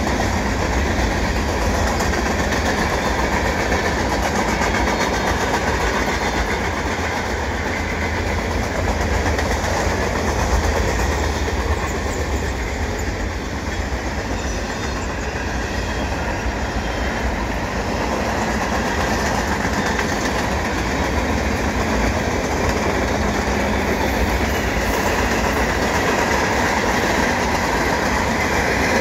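Long mixed freight train's cars (covered hoppers, centerbeam flatcars, a tank car) rolling past at speed: a steady, loud noise of steel wheels running on the rails.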